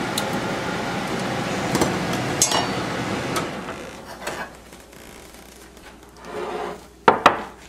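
Hot vegetable oil sizzling in a deep frying pan after the last croquettes have come out, fading about three and a half seconds in. A few light clicks follow, then two sharp knocks near the end.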